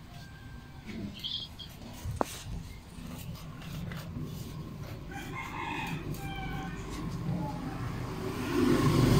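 A rooster crowing once, about five seconds in, lasting about a second and a half. Near the end a low rumble swells up.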